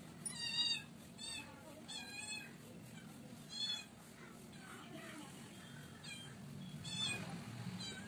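Short, high-pitched animal calls, about six of them: four in the first few seconds and two more near the end.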